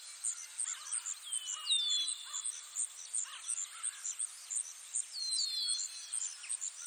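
Night forest ambience: insects chirping in a steady high pulse, about three a second, with bird calls, thin whistles sliding down in pitch, about two seconds in and again a little past five seconds.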